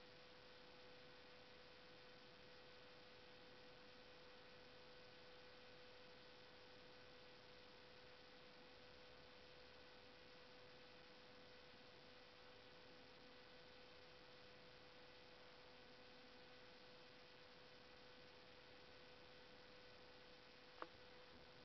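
Near silence: a steady faint hiss with a constant low hum, and one short click about a second before the end.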